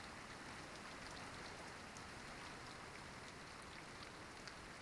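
Steady, faint rainfall, with scattered drops ticking close by.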